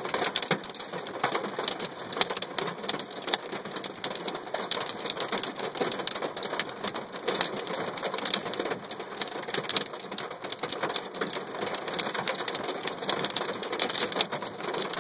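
Hailstones pelting down in a dense, unbroken clatter of many small, sharp impacts.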